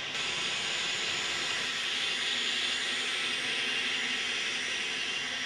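N scale model train running along the track, a steady whirring hiss from its wheels and motor.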